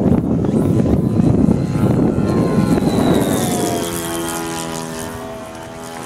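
Radio-controlled model airplane flying past. A loud rough rushing noise in the first few seconds gives way to a steady droning buzz that drops in pitch and fades as the plane flies away.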